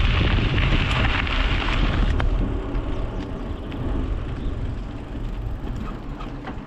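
Wind rushing over a bike-mounted GoPro Hero 9's microphone, with tyre noise from a bicycle on the move. It grows steadily quieter from about two seconds in.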